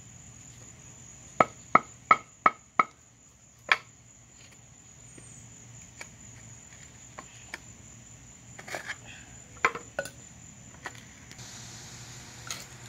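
Claw hammer striking nails in an old dry wooden board to knock them out: a quick run of five strikes about a second in, one more a second later, then scattered lighter knocks and clinks. A steady high insect drone, typical of crickets, runs underneath.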